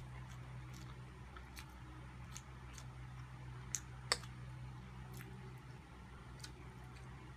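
Eating sounds: scattered soft clicks of metal forks on serving plates and mouth sounds as pasta is twirled and eaten, with two sharper clicks about four seconds in, over a steady low hum.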